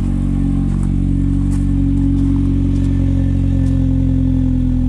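Vauxhall Astra VXR's 2.0-litre turbocharged four-cylinder engine idling steadily through a freshly fitted Milltek full 3-inch race turbo-back exhaust. It has a rasp that the owner thinks could be a blow from the middle section, or just the raspy noise these exhausts make.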